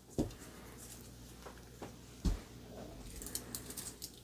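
Faint handling of a stainless-steel watch bracelet as the watch is picked up and fitted on a wrist: two soft thumps and scattered light clicks of the links and clasp.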